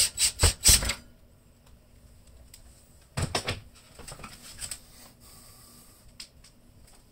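Cordless drill driving a screw tight in several short trigger bursts in the first second: the ground screw on a ceiling light's metal mounting bracket. A few light knocks and clicks of handling follow about three to five seconds in.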